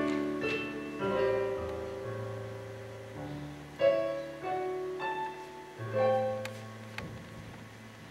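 Slow piano accompaniment playing an instrumental interlude: chords struck every second or two, each left to ring and fade, with no singing.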